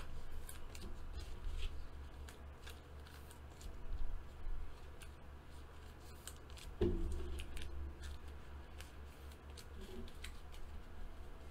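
Trading cards being slid into plastic penny sleeves by hand: soft, scattered plastic scrapes and rustles over a steady low hum.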